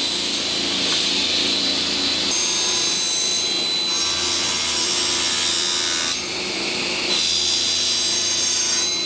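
Table saw running and cutting wood, its blade taking a half-lap joint out of a board in several passes, with a steady whine over the cutting noise. The sound dips briefly about six seconds in, then comes back up.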